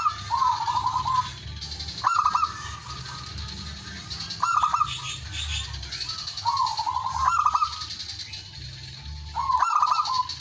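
Male zebra dove (perkutut) singing its cooing call: a short, rapid stuttering phrase repeated about every two seconds, five times over. It is the male's territorial call, used to challenge rival males.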